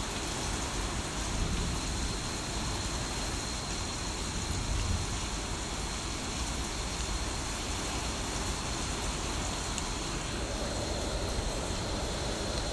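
Heavy rain falling steadily during a thunderstorm, a continuous even hiss.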